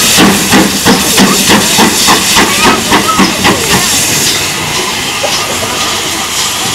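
GWR 4575 class small prairie tank locomotive 5526 working under steam, its exhaust beating at about four chuffs a second with a strong hiss of steam. The beats fade after about three and a half seconds, leaving a steady hiss.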